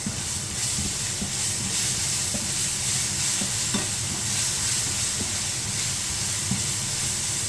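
Garlic and ginger paste sizzling with onions in hot oil in a frying pan, a steady hiss with a few faint clicks.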